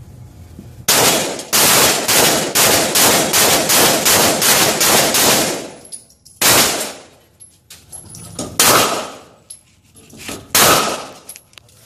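Gunfire at a shooting range: a quick string of a dozen or so shots, about three a second, then three single shots about two seconds apart.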